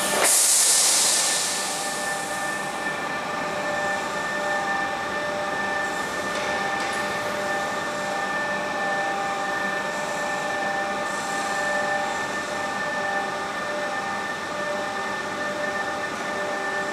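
Steady machinery hum in a high-power electrical test bay, a noisy drone with several held tones. Right at the start a sharp crack is followed by a rush of hiss that fades over about two seconds.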